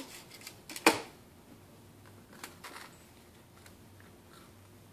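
Soft handling noises of a cookie sandwich being picked up off a paper plate, with a sharper knock about a second in and faint small rustles and clicks after.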